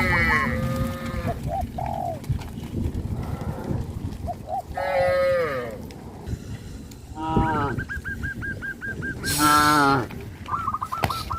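Cattle mooing, several separate calls from different animals across the herd, with a quick run of short high repeated calls from another animal in the second half.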